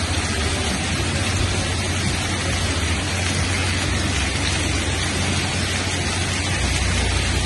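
Heavy rain pouring steadily onto a street covered in hail and running water: a dense, even hiss with a low rumble underneath.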